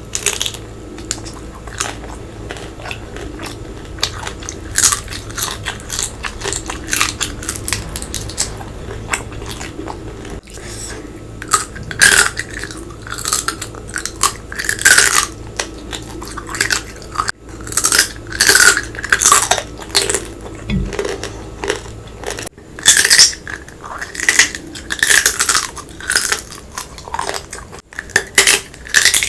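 Close-miked eating: repeated sharp cracks and crunches of biting into hard, crunchy food, with chewing in between, growing louder and busier in the second half.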